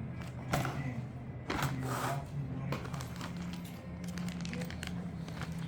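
Plastic parts bags and small hardware rustling and clicking as they are handled on a work surface, over a steady low background voice or music.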